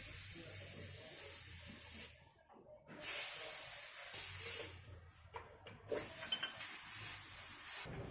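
Three bursts of pressurized hissing spray, each about two seconds long with short gaps between, the middle one swelling louder near its end.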